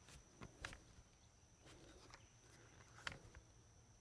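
Near silence: faint outdoor ambience with a steady high-pitched insect drone and a few faint clicks, the loudest about three seconds in.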